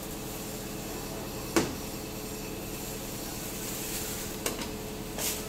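Bucket truck's engine running steadily, with a sharp crack about one and a half seconds in and a smaller one near the end.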